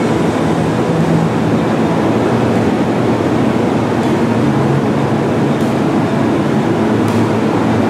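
Steady low rumble of a train, with a faint hum and a few light ticks.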